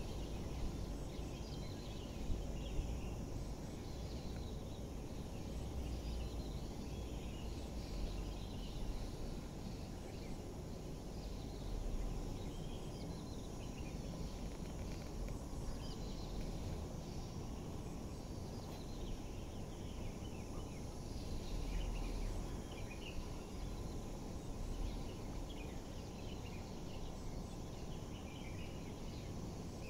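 Outdoor ambience: many small birds chirping in short, scattered calls over a steady low rumble.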